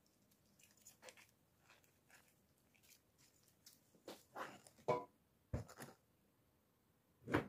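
Crisp pickling vegetables (cabbage, carrot and green pepper) pressed down into a full glass jar by a gloved hand, giving soft crunching and squishing. Two knocks follow as the glass jar is handled and moved, the louder one near the end.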